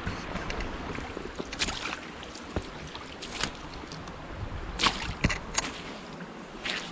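Footsteps crunching at an uneven pace on a woodland trail, over a steady rushing background noise.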